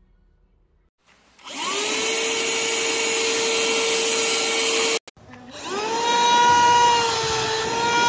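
Handheld rechargeable car vacuum cleaner switched on, its small motor whining up to speed and then running with a steady high whine. It cuts off suddenly about five seconds in, then starts up again and runs with a slightly wavering pitch.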